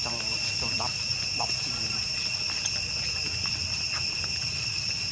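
Steady, unbroken high-pitched drone of insects, with a few faint short voices or calls in the background.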